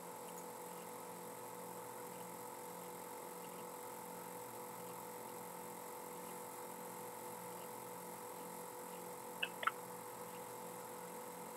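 Steady faint electrical hum with a few constant whine-like tones and a faint pulsing buzz, broken by two quick clicks about nine and a half seconds in.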